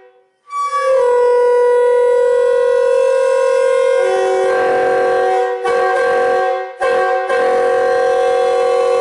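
Train air horn built from mixed Nathan K-series bells 2, 4 and 4A, blown as a three-note chord. It sounds first as a long blast, with a lower note joining about four seconds in, then as a short blast, a brief toot, and a last long blast.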